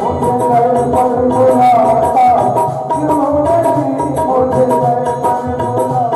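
Instrumental interlude of a Hindi devotional bhajan: hand drums keep a steady beat under a wavering melody line.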